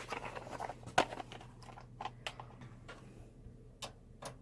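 Screwdriver tip clicking and scraping against small screws in a desktop PC's metal case, with a few scattered sharp clicks, the loudest about a second in. The bit does not fit: the screws are flatheads, not Phillips.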